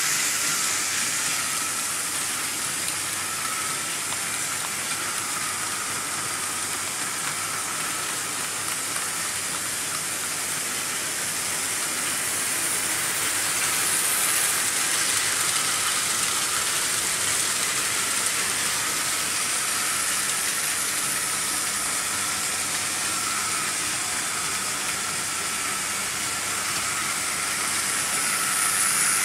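Several Märklin H0 model trains running together on vintage stamped-metal M-track: a steady rolling rush of wheels on the metal rails with a faint motor whine, swelling a little as trains pass closer.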